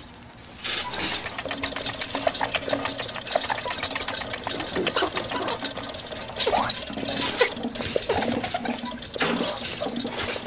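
Plastic hamster exercise wheel turning fast, a busy rapid rattling clatter of many small clicks over a steady low hum, starting about a second in.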